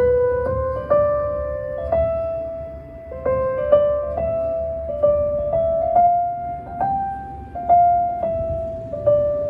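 Slow piano melody of single struck notes, about one to two a second, each ringing and dying away, played back through a portable Bluetooth speaker for a volume test.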